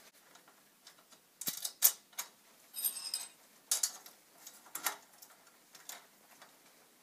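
Scattered small metal clicks and taps as a bolt and nut are fitted and tightened by hand to join a metal steering bar to its bracket, with a short rasping scrape about three seconds in.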